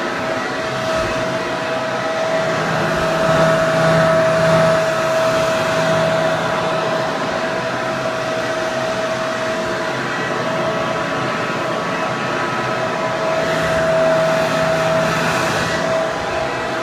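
Hair dryer running steadily: a rush of air with a steady whine over it, swelling slightly twice.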